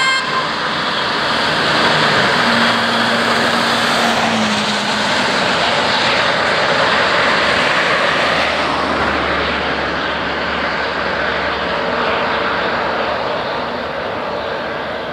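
Road vehicles driving past: a loud, steady rushing noise that eases off slightly near the end.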